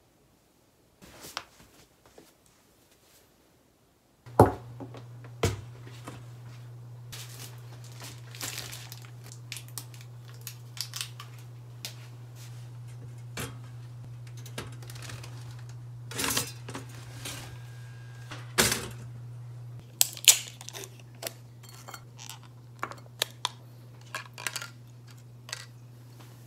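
A few soft rustles, then kitchen handling sounds while making toast: scattered clicks, knocks and light clatter of dishes and utensils. A steady low hum runs under them, starting with a sharp knock about four seconds in.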